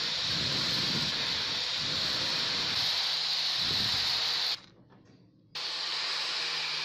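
Electric angle grinder running with a polishing wheel pressed against a steel pruner handle: a steady high motor whine with the rubbing hiss of the wheel on the metal. The sound cuts out for about a second past the middle, then resumes.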